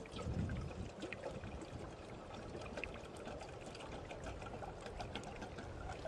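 Liquid trickling as it is poured from a flask, over small sharp crackles from a wood fire in a twig stove. Wind buffets the microphone briefly just after the start.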